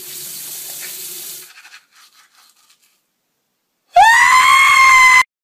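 A toothbrush scrubbing teeth for about a second and a half. Then, about four seconds in, a man screams loudly on a high pitch that shoots up and holds for about a second before cutting off.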